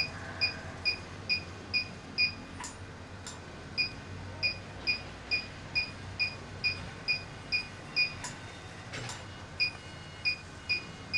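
360-degree HIFU machine beeping in time with its ultrasound pulses, a short high beep a little over twice a second, broken by two pauses of about a second and a half. A few faint clicks fall in between.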